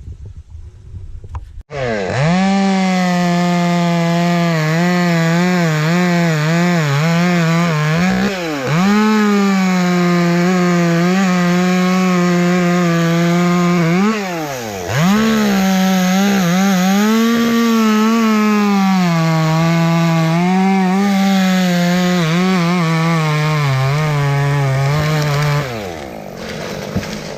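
Chainsaw cutting dry, dead elm wood, starting about two seconds in, its engine pitch wavering as it works through the cut, dropping and picking back up twice, then stopping near the end.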